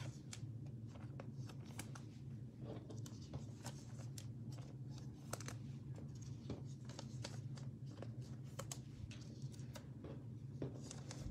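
Faint steady low hum with scattered light clicks and taps from small off-screen handling.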